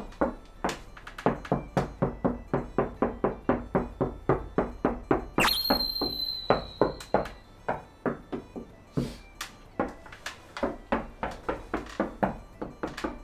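Knuckles rapping on an interior wall in a quick, steady series of about four knocks a second, sounding the wall to find the wooden stud behind it.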